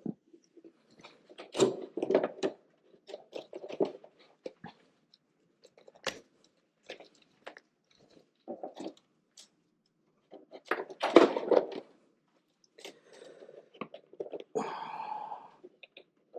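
Irregular clicking, rustling and crunchy handling noises of multimeter probe clips and wires being fitted back onto a motorcycle battery, in short bursts with pauses between them; the loudest cluster is about eleven seconds in.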